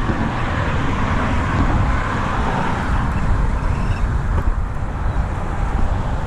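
Steady road noise from traffic passing on the bridge, an even rushing with a low rumble.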